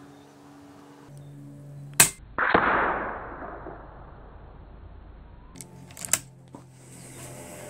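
Daystate Red Wolf .177 HP electronic PCP air rifle firing a single shot about two seconds in: one sharp crack. Half a second later comes a longer rushing noise that dies away over about a second, and a few fainter clicks follow near the end.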